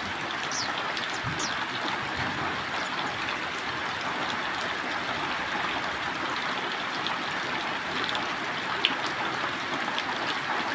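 Heavy rain falling: a steady hiss of water, with a few sharp drop ticks and one louder tap near the end.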